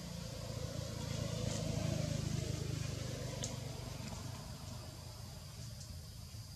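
Low rumble of a passing motor vehicle, swelling about two seconds in and then fading away.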